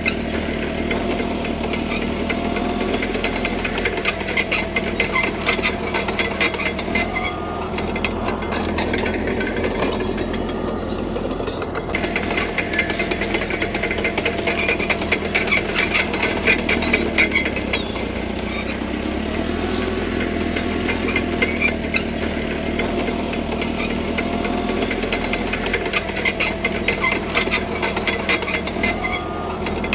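CAT D3K crawler bulldozer working: its diesel engine runs steadily while the steel tracks give off stretches of rapid clanking and squeaking as the machine moves, and the engine note rises and falls with the load.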